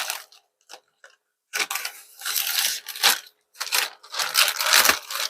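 A parcel's packaging being torn open and handled, with irregular bursts of crackling and crinkling.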